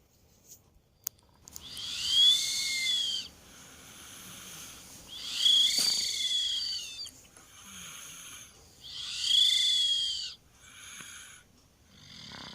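A sleeping two-year-old child snoring: three loud whistling breaths about three and a half seconds apart, each with a high tone that rises and falls, with softer breaths between.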